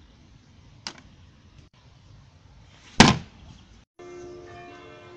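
A rubbish-bin lid slamming shut about three seconds in, after a lighter knock about a second in. Light music with bell-like notes starts near the end.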